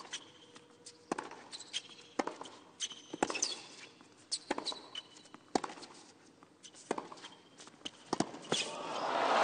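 Tennis rally on a hard court: racket strikes on the ball roughly every second, with short high sneaker squeaks between them. Near the end, crowd applause and cheering swell up as the point is won.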